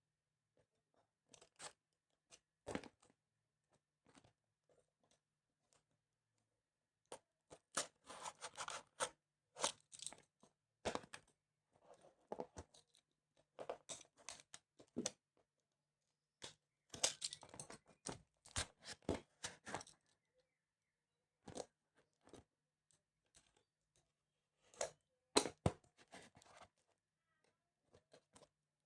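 Packaging of a Samsung 870 Evo SSD being handled and torn open: irregular crackling, crunching and tearing in bursts, with quiet gaps.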